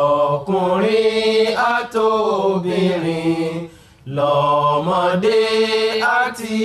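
Voices chanting a religious song in Yoruba in long, drawn-out phrases, with a short break about four seconds in. The song names the Ahmadiyya movement and Ghulam Ahmad.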